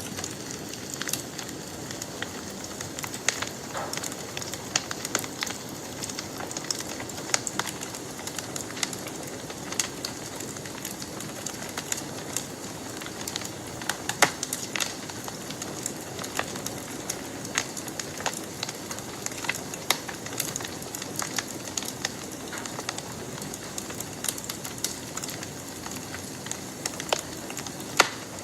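Wood campfire crackling: irregular sharp pops and snaps over a steady hiss of burning.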